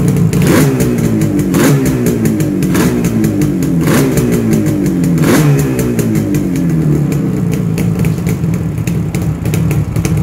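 Yamaha RD350 two-stroke parallel-twin engine blipped on the throttle five times in quick succession, the revs falling back after each, then idling steadily.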